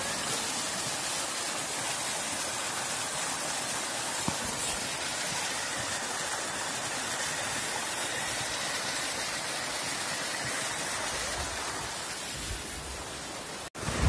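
Small waterfall, thin streams of water spilling over a stone wall into a shallow pool, making a steady rushing splash. It drops out for a moment near the end.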